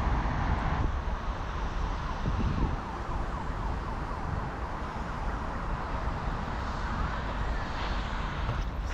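Steady road traffic noise with a low rumble throughout.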